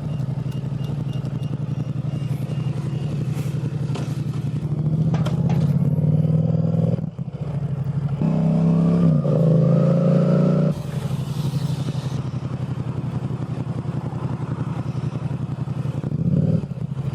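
Motorcycle engine running steadily, then pulling hard with the pitch rising twice about five to eleven seconds in, broken by a sharp dip near seven seconds that is a gear change, before settling back to a steady run.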